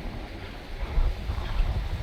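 Wind buffeting the microphone in uneven gusts, a low rumble that swells about a second in.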